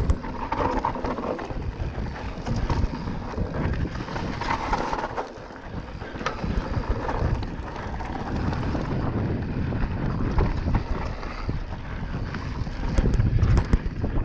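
Mountain bike descending a rough trail at speed: wind buffeting the action camera's microphone over a low rumble of tyres on dirt, with the chain and frame rattling and the suspension knocking over bumps, the heaviest knocks near the end.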